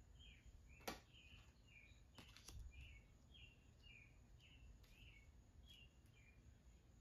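Faint bird calls: a short falling chirp repeated about twice a second. A sharp click about a second in, and a couple of softer clicks a little over two seconds in.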